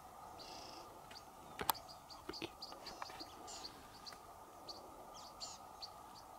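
Faint, scattered bird chirps and short calls over a quiet background hiss, with a single sharp click about a second and a half in.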